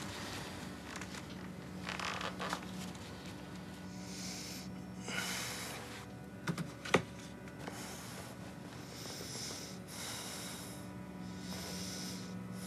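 A man breathing slowly and audibly in his sleep, a hissy breath every second or two. A single sharp click sounds about seven seconds in, over a faint steady low hum.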